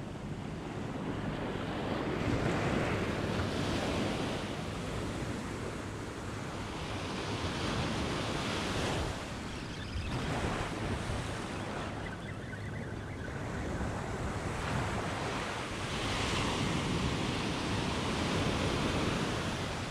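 Ocean surf breaking and washing up over a sandy beach, the rushing water swelling and ebbing every few seconds as each wave comes in and draws back.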